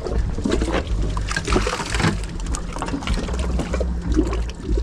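Water splashing and trickling as a dip net scoops live bait out of a boat's bait tank, over a steady low hum.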